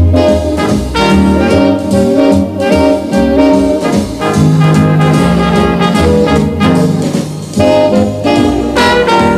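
Background jazz music with saxophone and brass playing a melody over a steady beat.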